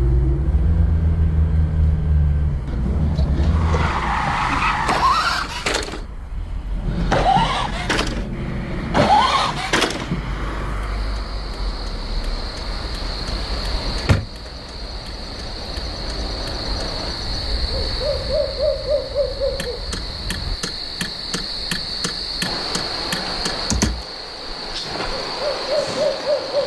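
Horror-film soundtrack of a night drive. A car engine runs with a low rumble at first, then come a few short rising, sliding sounds, and from about the middle a steady high-pitched whine with rapid clicking over it.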